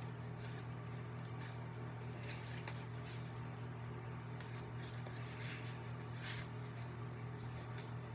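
A steady low hum, like a household appliance running, with a few faint soft rustles or scrapes of handling, the clearest about two and a half, five and a half and six seconds in.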